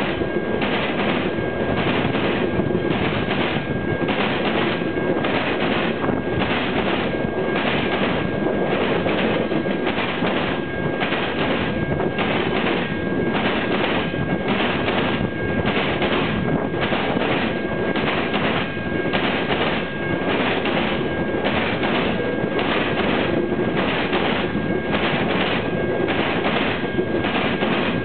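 Freight train of loaded flatcars passing at track speed, its wheels pounding over a railroad diamond crossing in a fast, even rhythm of heavy clacks over a steady rumble, with a thin high tone running under it.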